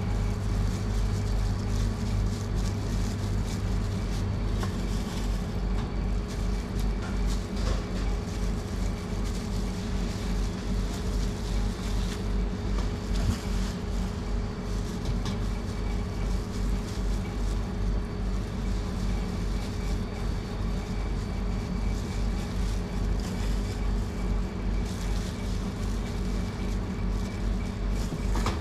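Steady low mechanical hum with a few thin steady tones above it, and occasional faint clicks.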